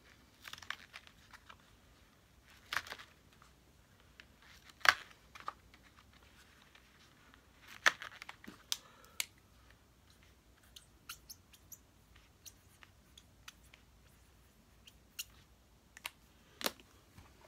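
Small screws being pushed through a paper card and handled: scattered light clicks and paper crinkles, the sharpest about five seconds in, with a run of small ticks later on.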